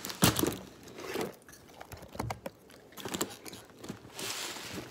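Cardboard toy box being handled and opened: scattered knocks and taps on the packaging, the loudest about a quarter second in, then a rustle of the packaging near the end.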